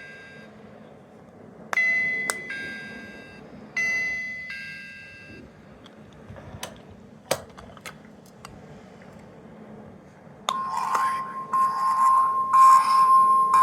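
Sound-making capsule toys: a tiny electronic doorbell-style ding-dong chime sounds twice, falling from a high note to a lower one and fading each time. A few sharp clicks follow, like small buttons being pressed. About ten seconds in, a louder electronic sound starts: a held high beep over a fast pulsing buzz.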